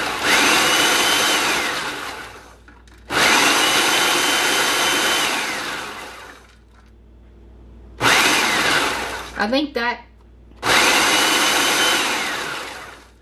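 Food processor pulsed four times, each run a couple of seconds long, with the motor whine rising, holding and falling away as it spins down. It is chopping flaked coconut and pecans into small pieces.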